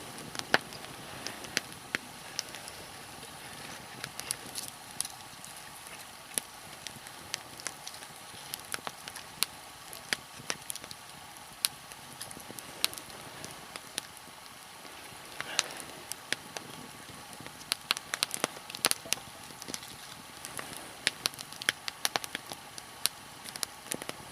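Nodya log fire crackling, with irregular sharp pops over a steady hiss as the logs burn over a bed of coals.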